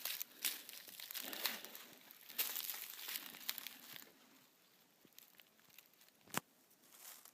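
Footsteps crunching and rustling through dry leaf litter and twigs on a forest trail, busy for the first few seconds and then quieter, with a single sharp crack about six seconds in.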